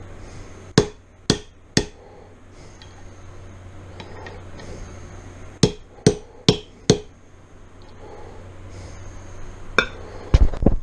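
Hammer tapping a thin-wall 17 mm socket to drive the water pump seal down into a 1996 Suzuki RM250 crankcase half. It goes three sharp taps, a pause, four taps, then a few more near the end.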